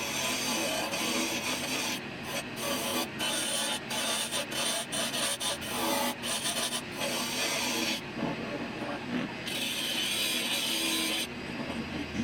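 Wood turning on a WEN 8x12 benchtop lathe: a cutting or scraping tool rubs against the spinning wood workpiece. The contact comes in short broken strokes for several seconds, then runs steadier near the end.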